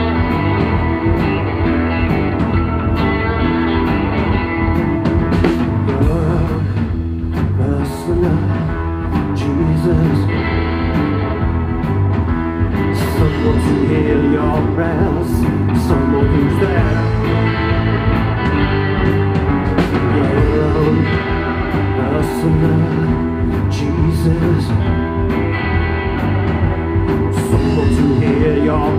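Live rock band playing: electric guitars, electric bass and a drum kit, with a male lead vocal at times.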